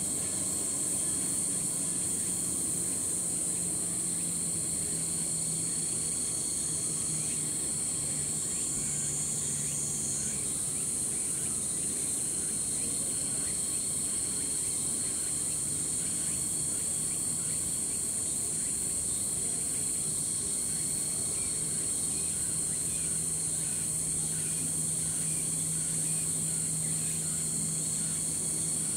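Autumn cicadas shrilling in a steady, continuous high drone, with a faint low hum beneath.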